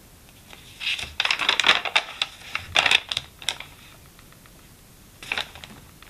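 A paper notebook page being turned by hand, rustling and crinkling for about three seconds. A shorter rustle follows near the end as the page is pressed flat.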